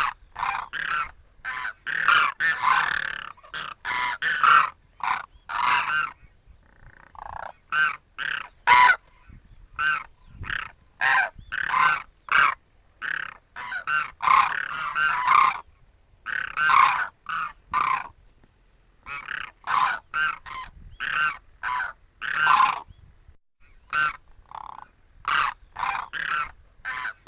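Birds giving a long run of short, loud calls in quick succession, several a second, with two brief pauses.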